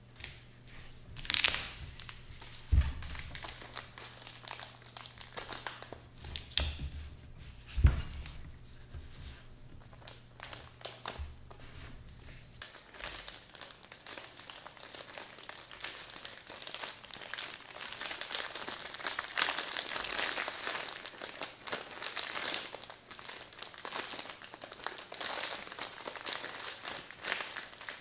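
Foil-lined plastic bread packet crinkling and tearing as hands handle it and pull it open, the crinkling steadier and stronger in the second half. A few sharp knocks sound in the first several seconds.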